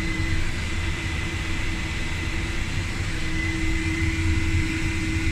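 Gulfstream G450 electric auxiliary hydraulic pump running steadily: a constant hum with a low rumble and a steady whine, holding the hydraulic system at 3,000 PSI.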